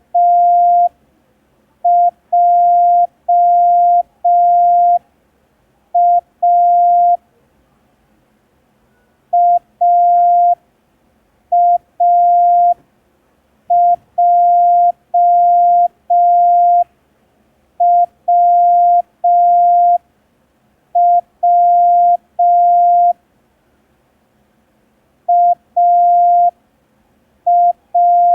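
Morse code practice tone: a steady beep at a single pitch keyed on and off in slow dots and dashes. It sends five-letter practice groups made up of the letters A, J and W, with longer pauses between letters and groups.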